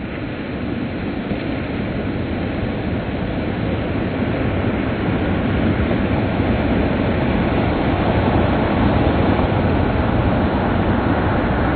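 Ocean surf: waves breaking and foaming in a steady rush that slowly grows louder.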